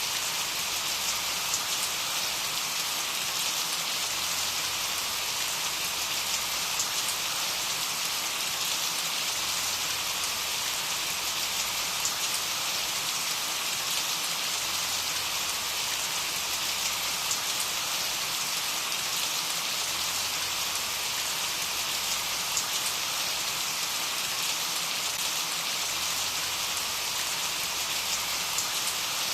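Steady rain falling, an even hiss of many drops with faint individual patters.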